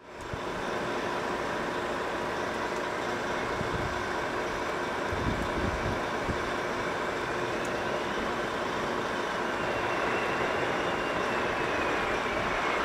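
Cessna Citation XLS business jet on final approach, its twin Pratt & Whitney PW545B turbofans running as a steady rush of engine noise that grows slightly louder as it nears. A high whine rises in pitch about halfway through and falls away near the end.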